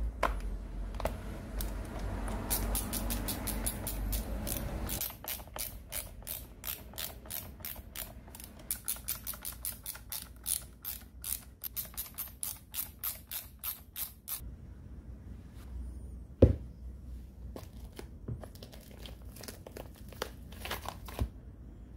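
Ratcheting screwdriver clicking in long, quick, even runs while screws are driven into an angle grinder's plastic housing. About two-thirds of the way in there is one sharp knock, and near the end a few scissor snips.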